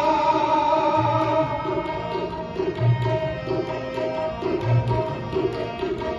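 Tabla pair playing a steady rhythm, a deep bass-drum stroke about every two seconds with quicker treble strokes between, under sustained harmonium chords as Sikh shabad kirtan accompaniment.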